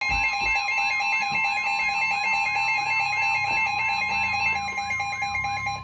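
Weather radio alert tones: a steady high alarm tone, the NOAA Weather Radio warning tone, layered with other steady tones and a fast repeating warble. It is the attention signal that comes before a warning message is read; the upper tones drop out near the end while the steady tone carries on.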